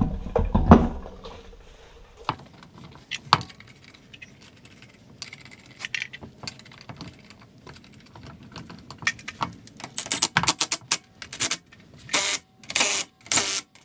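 Metallic jangling and clicking: a few thumps at first, then scattered clicks that thicken into a regular rattle of short jangles, about two a second, near the end.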